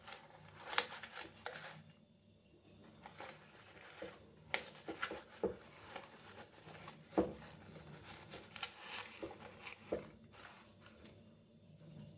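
Rustling and light clicks of flower stems, petals and leafy sprigs being handled and pushed into a flower arrangement, in short irregular bits with a brief lull a couple of seconds in.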